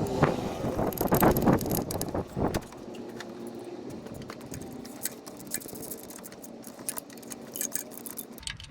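Metal clinking and rattling of hand tools and a metal plate being fitted and bolted on in an engine bay: many small, irregular clicks and clinks. A denser, louder stretch of noise fills the first two and a half seconds.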